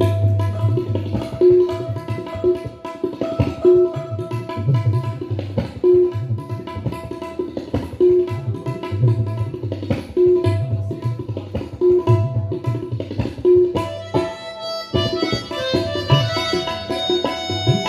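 Instrumental Pashto folk music: tabla keeping a steady repeating rhythm with deep bass-drum strokes under a held harmonium drone, with clarinet in the ensemble. About fourteen seconds in the rhythm breaks off briefly and a busier, higher melody line comes in.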